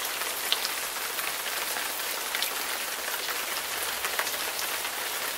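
Steady rain falling, an even hiss with scattered individual drop hits.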